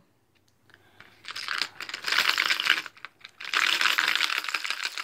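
Hard plastic lures and treble hooks clattering and rattling against a clear plastic tackle box as a hand rummages through it, in two spells of rapid clicking.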